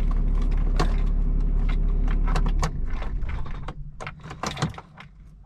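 A Ram pickup's engine idling with keys jingling and clicking in the ignition. About two and a half seconds in the engine shuts off, leaving only scattered key clicks.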